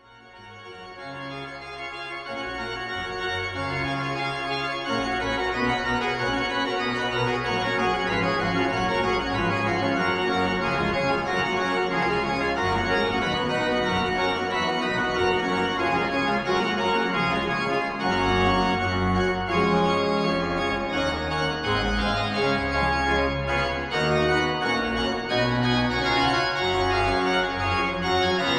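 Organ music in slow, sustained chords, fading in over the first few seconds.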